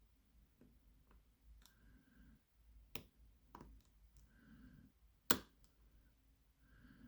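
Scattered sharp clicks from a lock pick working the pins of a pin tumbler lock, with one loud click about five seconds in.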